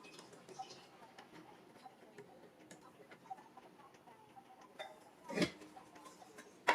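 Faint, scattered small clicks and taps of handling, with a louder knock about five and a half seconds in.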